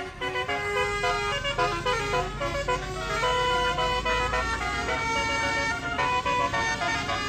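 Indonesian tour bus's 'telolet basuri' musical horn playing a tune of held notes that change pitch every fraction of a second, over a low engine rumble.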